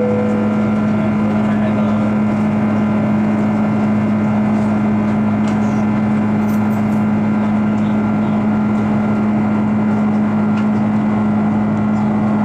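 Steady roar of an Airbus A330-300's jet engines and airflow heard inside the passenger cabin during the climb after takeoff, with a constant low drone under it.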